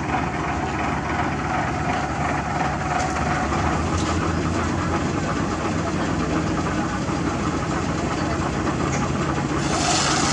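Heavy diesel engine of construction machinery running steadily, with a short hiss near the end.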